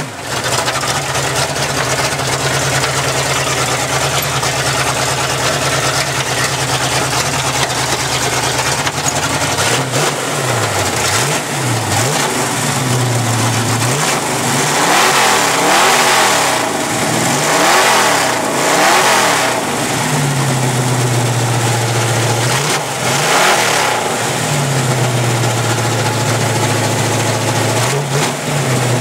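Four-barrel carbureted engine of a Chevy 4x4 mud race truck idling steadily, then revved hard again and again from about ten seconds in, each rev rising and falling quickly back toward idle, with short idle stretches between the later revs.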